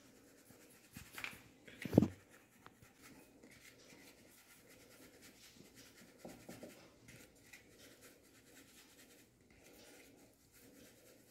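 Flour being shaken through a plastic sieve onto a metal plate, a faint, steady scratchy rustle. There is a sharp knock about two seconds in and a few lighter knocks later.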